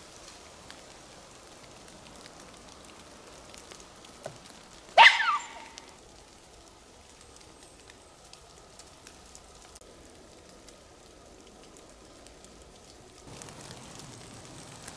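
Faint wet-woodland background with scattered light drips, like snowmelt dripping from the trees. About five seconds in comes one short, loud cry that sweeps sharply up in pitch and falls back.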